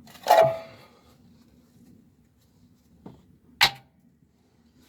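Sharp metallic clanks of hand tools on metal: a loud one with a brief ring about a third of a second in, and another about three and a half seconds later.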